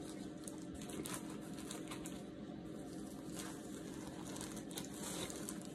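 Clear plastic disposable gloves and the thin plastic bag around a rotisserie chicken crinkling and rustling softly in scattered light crackles as gloved hands pull the chicken apart.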